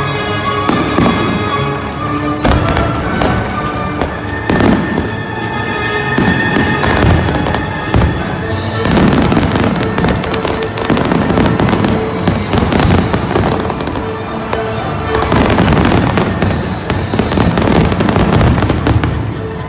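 Fireworks bursting and crackling in quick succession, with music playing underneath. About halfway through, the bangs thicken into a dense, continuous crackle.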